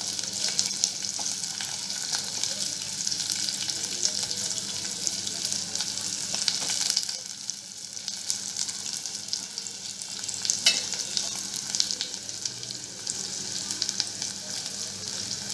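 Chopped onions and garlic sizzling and crackling in hot oil in a stainless steel pot over a high gas flame, stirred with a perforated steel ladle. The sizzle eases a little about halfway through and picks up again.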